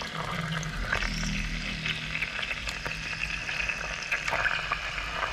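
Chicken pieces searing in hot oil in a pot, a steady sizzle, with a few light knocks as the pieces are laid in and moved by hand.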